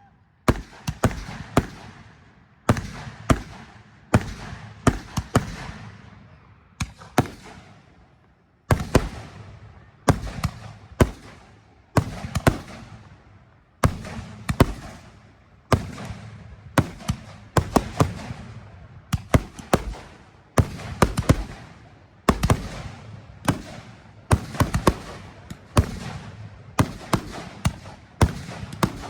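Fireworks going off in rapid succession, a sharp bang about every second, each one dying away before the next.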